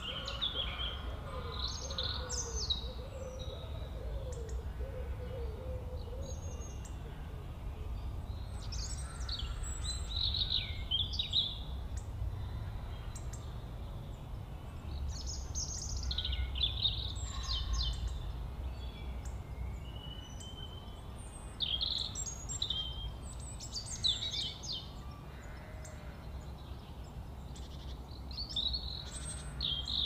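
Birds chirping and singing in short, high-pitched phrases scattered throughout, over a low steady rumble. A lower warbling call runs through the first few seconds.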